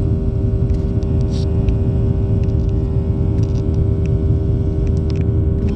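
Steady airliner cabin noise from a jet in flight: a deep rumble of engines and airflow with a steady hum over it, and a few faint clicks.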